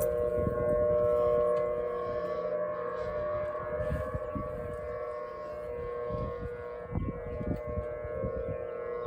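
Several outdoor warning sirens, Federal Signal Thunderbolts among them, sounding together in a routine monthly test. Their different pitches overlap into a steady chord that neither rises nor falls.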